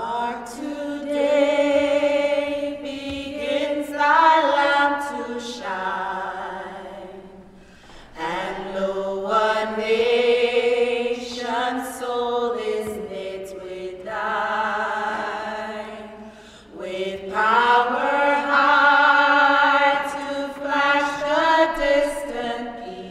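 Choir singing slow phrases of long, held notes, with two short breaths between phrases, fading near the end.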